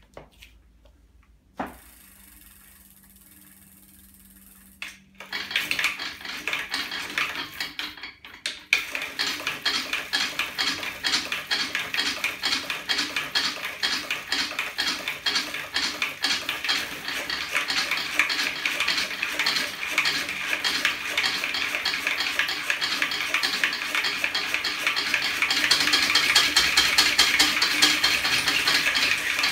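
Homemade lever-and-spring magnet pedal-assist rig on a bicycle's rear wheel running: rapid metallic clicking and clattering from its aluminium arms, springs and chain. It starts about five seconds in, stops briefly, then runs on and grows faster and louder.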